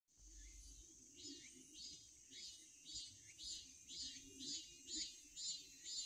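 Cicada calling in a regular series of pulsing phrases, about two a second, getting louder toward the end, over a continuous high-pitched buzz.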